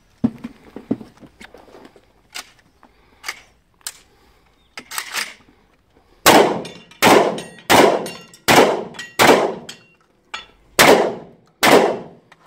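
Shotgun fired seven times in quick succession, each shot a loud bang with a short echo. A few fainter bangs and knocks come in the first half.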